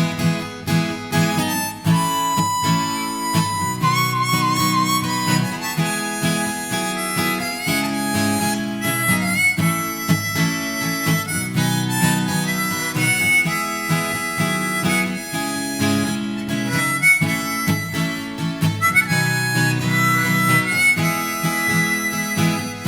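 Harmonica playing a melody solo over strummed acoustic guitar, with held notes that waver in pitch.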